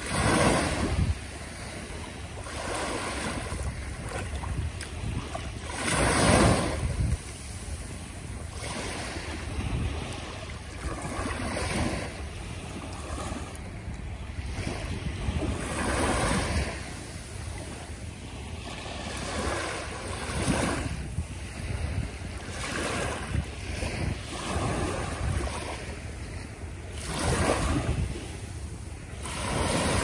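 Small waves washing up a sandy beach and draining back, surging every few seconds; the loudest wash comes about six seconds in.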